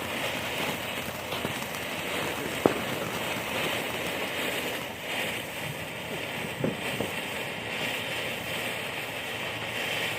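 Backyard fountain firework hissing steadily as it sprays, with one sharp pop about two and a half seconds in and a couple of fainter cracks later.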